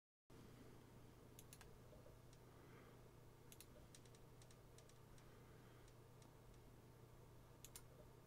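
Near silence: low room hum with a dozen or so faint, sharp clicks, several in close pairs.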